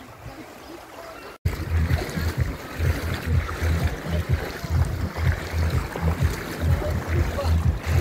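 Seaside ambience of shallow water lapping, jumping louder at a cut about a second and a half in, with wind rumbling irregularly on the microphone.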